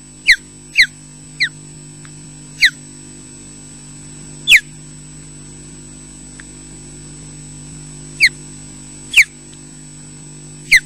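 Ospreys giving short, sharp whistled calls that slide down in pitch, about eight of them spaced irregularly, over a steady electrical hum.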